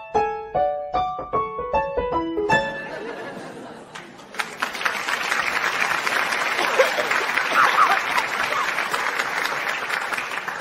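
A quick jingle of electric-piano notes rings out and fades, then studio audience applause with some cheering and laughter starts about four seconds in and cuts off suddenly at the end.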